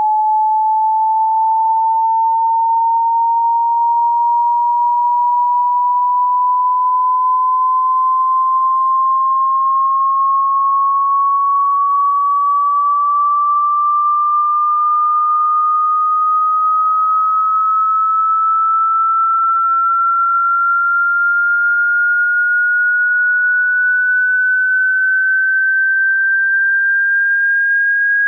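Pure sine test tone of a hearing-test frequency sweep: a single steady tone gliding slowly and evenly upward in pitch, from a little under 900 hertz to about 1,600 hertz.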